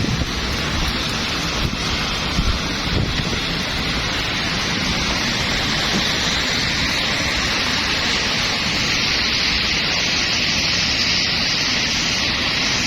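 Steady rain making an even hiss, with wind rumbling on the microphone during the first few seconds.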